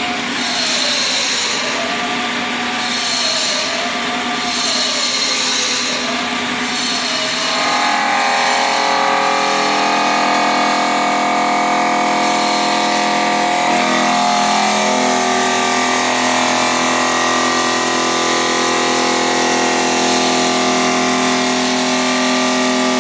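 CNC stone-cutting machine working marble. For the first several seconds its pitch rises and falls about every second and a half with a pulsing hiss, then from about eight seconds in it settles into a steady, many-toned whine.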